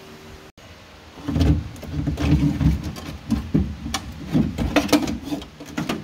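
Old all-plastic front door lock actuator being worked out of a 2006 Honda Civic's door shell: irregular knocks, clicks and rattles of plastic and linkage rod against the door's sheet metal, starting about a second in.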